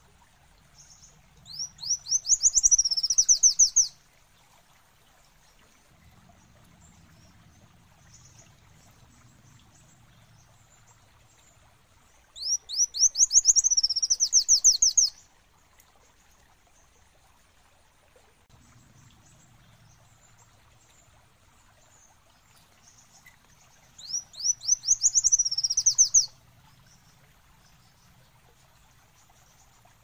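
Kolibri wulung sunbird singing: three bouts of rapid, high, sharp notes, each about two to three seconds long and spaced roughly ten seconds apart, with faint single peeps between them.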